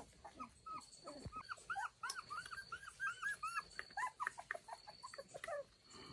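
Dog whimpering in a quick string of short, high whines, several a second, which turn into quicker falling whines after about four seconds.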